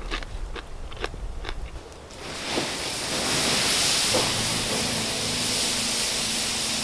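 A few soft clicks, then, about two seconds in, water poured from a bottle onto campfire embers sets up a steady loud hiss as it turns to steam. Faint music comes in near the end.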